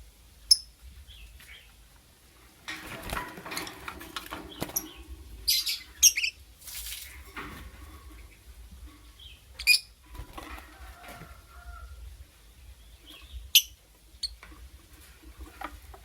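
Lovebird giving short, sharp, high-pitched chirps, four or five loud ones spaced through the stretch, with quieter scratchy rustling in between.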